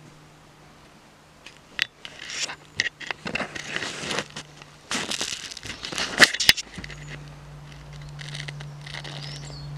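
Rustling and crackling handling noise with scattered sharp clicks and knocks as a handheld camera is moved about, over a steady low hum that drops out midway and comes back louder about seven seconds in.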